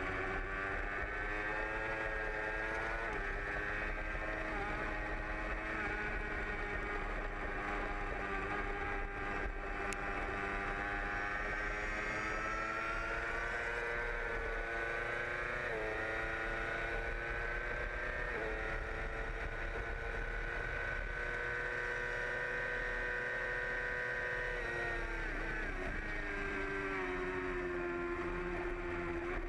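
2008 Yamaha R6's 600 cc inline-four engine running hard at high revs. Its pitch climbs through the gears with short dips at each upshift, holds high along a straight, then drops with a quick run of downshifts near the end, over steady wind rush.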